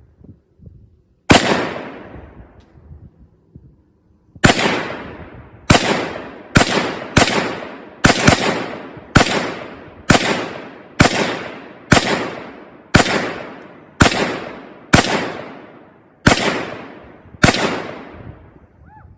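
Semi-automatic AR-style rifle firing about fifteen single shots, each ending in a short fading echo: one shot, a pause of about three seconds, then a steady string at roughly one shot a second.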